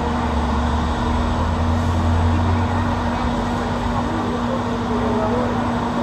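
Airliner engines running, a loud steady noise with a constant hum. A deep rumble underneath is strongest in the first half and eases after.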